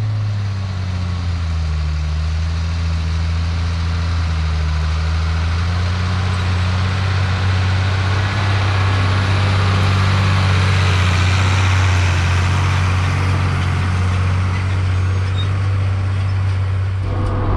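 Big Ford tractor's diesel engine running hard under load as it pulls a plow past at close range. It is a steady low drone that grows louder to its nearest point about two-thirds of the way through, then eases off. Just before the end it changes suddenly to the engine as heard from inside the cab.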